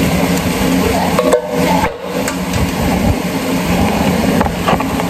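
A steady mechanical hum with a low rumble underneath, like a running fan or motor, with a couple of short metal clanks about a second and a half and two seconds in as a can is emptied into a stainless steel pot.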